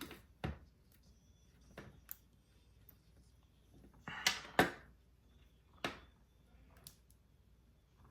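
Scattered small clicks and taps of a precision screwdriver and the phone being handled on a work surface, with a short double knock about four seconds in as the loudest.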